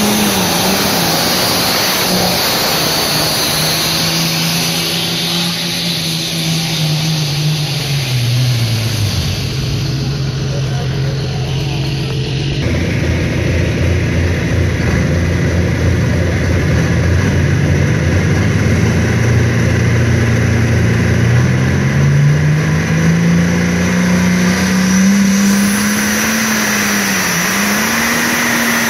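Diesel pulling tractors under full load dragging a weight sled. The first engine's pitch sinks steadily as it bogs down over the first ten seconds. After a sudden change, a second tractor's engine runs low and steady, then climbs in pitch as it pulls away.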